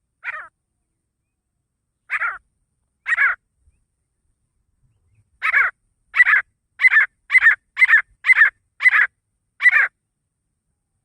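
Grey francolin (desi teetar) calling: a series of short, harsh, high calls. Three come a second or so apart at first, then about halfway through they speed up into a regular run of about two calls a second.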